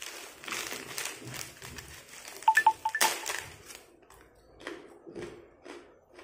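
Crinkling of a plastic snack bag as a Japanese prawn cracker is pulled out, then crisp crunches as the cracker is chewed. About two and a half seconds in, an electronic device gives four quick, high beeps, the loudest sound.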